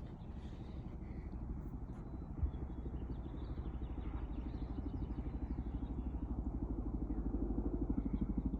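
Chinook helicopter's tandem rotors thumping in a fast, even beat, growing steadily louder as it approaches. A single sharp knock about two and a half seconds in.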